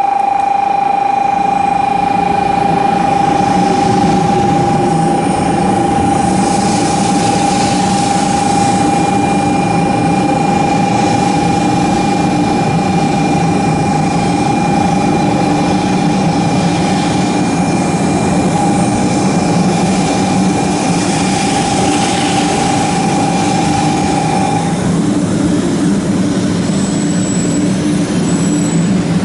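A 500 series Shinkansen pulling into the station: a steady rush of running and wheel noise that swells and fades, over low motor tones. A steady high tone runs alongside and cuts off a few seconds before the end.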